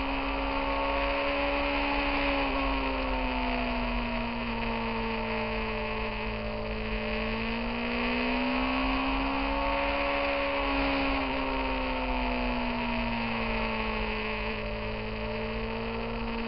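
Motorcycle engine running at cruising speed, its steady note dipping about three seconds in, climbing again around eight to ten seconds, then easing off as the throttle changes through the curves, with a constant rush of wind noise.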